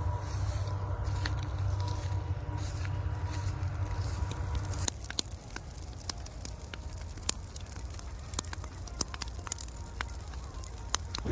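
A steady low engine hum that stops about halfway through, followed by scattered sharp crackles and clicks.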